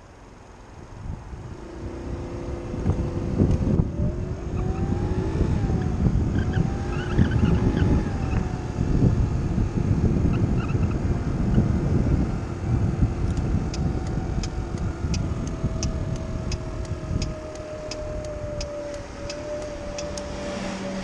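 Kymco Agility City 50cc scooter's four-stroke single engine pulling away, its whine rising over the first few seconds, then easing down and holding steady at cruising speed. Heavy wind rumble on the chest-mounted camera's microphone, and a fast run of light ticks in the second half.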